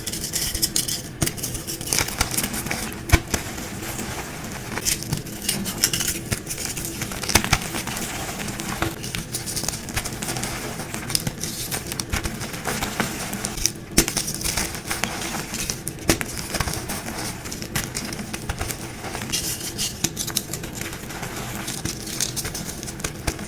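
Dyed gym chalk blocks crunching and crumbling as they are crushed, a dense run of sharp cracks and crackles.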